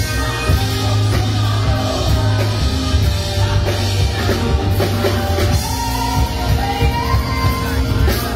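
Live band playing an upbeat rock-soul song, with electric guitar, bass and drums under women singing the melody.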